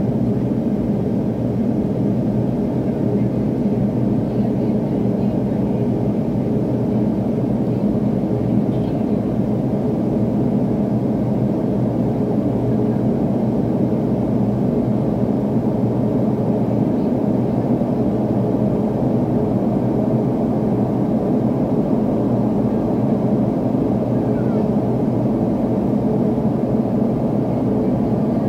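Cabin noise inside an MD-80 airliner climbing after takeoff: a steady, unbroken drone of its rear-mounted Pratt & Whitney JT8D turbofans and rushing air, with a few low steady hums in it.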